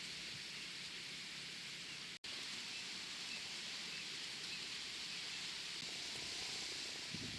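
Steady outdoor ambient hiss, like leaves rustling in a breeze or distant running water, dropping out for an instant about two seconds in.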